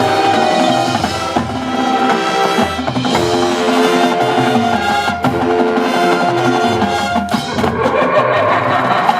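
High-school marching band playing: held chords over drums and front-ensemble percussion, loud throughout.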